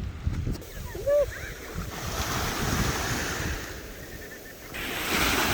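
Surf washing on a beach, with wind buffeting the microphone; the rush of water grows louder near the end.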